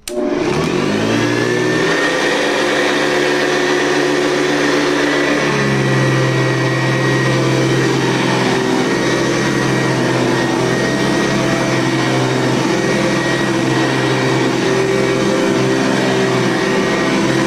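1972 Hoover Convertible U4119 upright vacuum cleaner, a 4.3-amp belt-driven machine, switched on: its motor spins up with a rising whine, then runs steadily with a high whine over its hum. The low hum shifts in tone about five seconds in.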